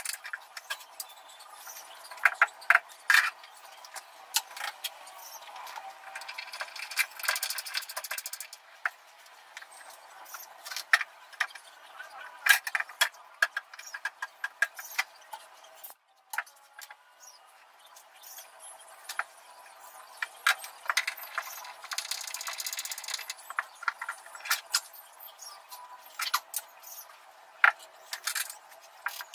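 Hand screwdriver driving screws to fix a wall cabinet on steel angle brackets: scattered sharp clicks and rattles of the screwdriver and screws, with two stretches of scraping noise about two seconds long.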